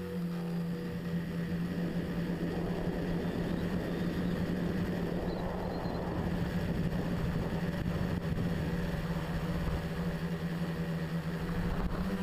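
Tricopter's motors and propellers running in flight, picked up by the camera mounted on the craft: a steady hum with a rushing noise of air and prop wash underneath.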